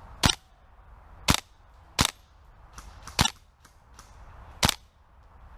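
Airsoft gun firing single shots: five sharp cracks spaced irregularly about a second apart.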